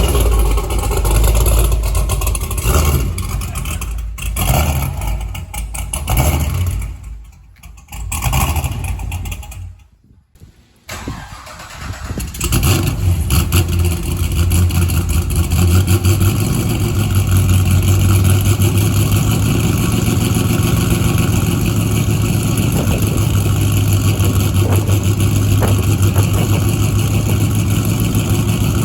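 Cammed LS2 6.0 L V8 of a 2006 Pontiac GTO, with a Brian Tooley Racing Stage 3 cam and long-tube headers. It runs, falls quiet briefly, then starts up about twelve seconds in and settles into a steady idle.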